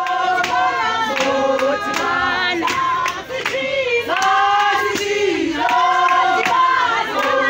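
A group of women singing a protest song together in harmony, loud and sustained.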